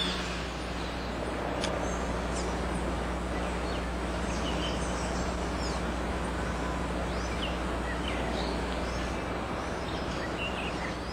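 Outdoor ambience: a steady bed of background noise with a low hum, and small birds giving scattered short chirps.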